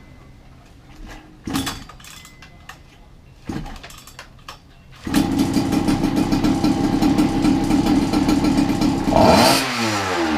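Goped R460 two-stroke engine with a Jetpro expansion pipe being started: two brief attempts about one and a half and three and a half seconds in, then it catches about five seconds in and runs steadily, revving up briefly near the end.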